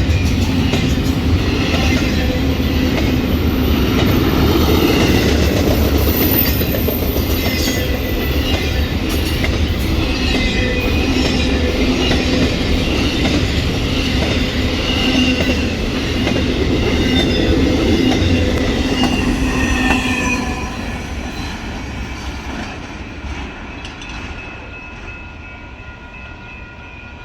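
Railroad cars rolling past on the rails, with thin high wheel squeals over a steady rumble. The sound fades away over the last seven seconds or so as the train moves off.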